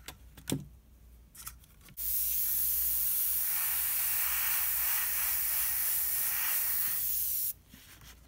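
Iwata Eclipse HP-CS gravity-feed airbrush spraying a test swatch of freshly mixed paint onto card: a steady air hiss that starts suddenly about two seconds in and cuts off suddenly about five and a half seconds later.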